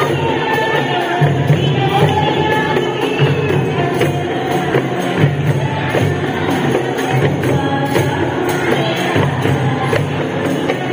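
Women singing together, accompanied by hand frame drums (rebana) and a jingled tambourine beating a steady rhythm; the lead voice is amplified through a microphone.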